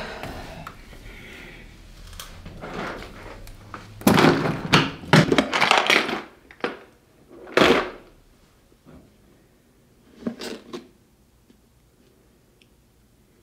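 Things being handled and set down on a table: a run of clattering knocks and rustles about four to eight seconds in, a shorter clatter around ten seconds, then quiet.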